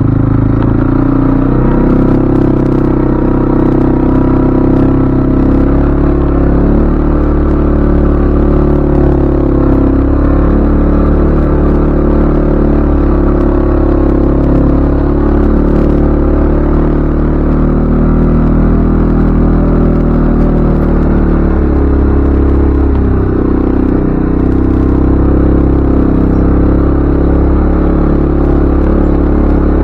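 CFMoto ATV engine running while the machine is ridden, its pitch rising and falling with the throttle and dipping briefly about three quarters of the way through, with a few short clattering knocks.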